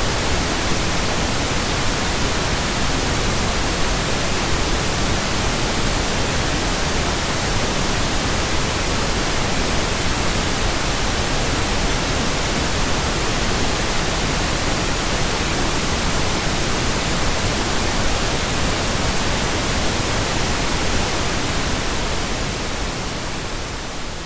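Steady generated pink noise, an even hiss with no tones or clicks in it, beginning to fade out near the end.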